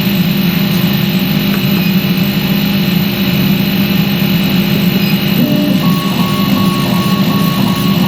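Upgraded fume-extraction fan on a 100 W CO2 laser cutter running steadily with a loud hum. About six seconds in, a faint high tone starts pulsing on and off.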